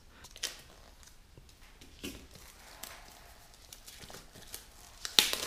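Hands handling and opening an iPhone 6S cardboard retail box: faint scattered taps and rustles of cardboard and plastic wrap, with one louder, brief rustle about five seconds in.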